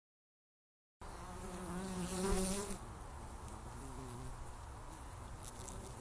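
Honeybees buzzing around an open hive, starting about a second in. A louder buzz swells about two seconds in, then fades back into the steady hum.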